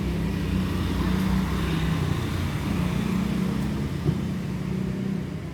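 Domestic cat purring steadily, the low rumbling tone shifting slightly every couple of seconds as it breathes in and out.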